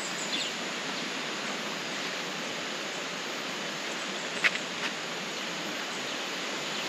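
Steady, even rushing outdoor ambience with no single clear source, broken by a couple of brief high chirps about four and a half seconds in.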